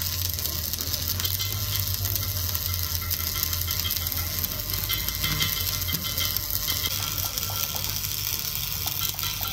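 Stick welding on a steel truck front axle: the electrode's arc gives a steady, even crackle. A steady low hum runs underneath.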